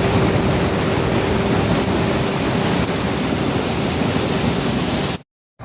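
John Deere 9550 combine running steadily while harvesting corn: a loud, even mechanical rush with a faint steady hum, cutting off abruptly to silence just before the end.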